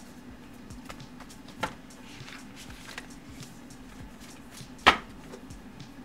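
Tarot cards handled on a table: faint rustling and ticks over a low room hum, with a sharp click about a second and a half in and a louder sharp knock near five seconds in.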